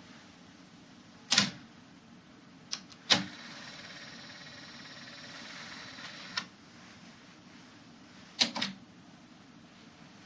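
Trio KX-1000 cassette deck's transport controls being worked: several sharp mechanical clicks, with a steady hiss running for about three seconds between two of them, as the repaired deck is put through its functions.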